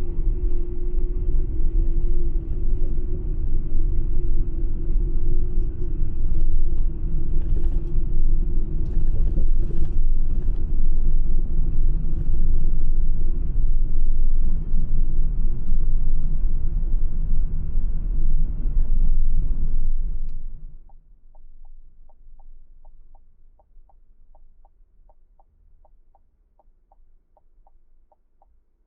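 Car road rumble while driving, loud and steady. It cuts off abruptly about twenty seconds in, and faint quick ticking follows at about three ticks a second.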